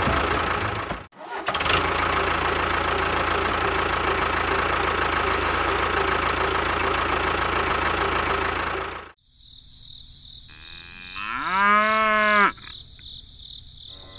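A steady, loud mechanical-sounding noise with a faint hum cuts off about nine seconds in. Near the end a cow moos once, a call of about a second that rises and then holds its pitch.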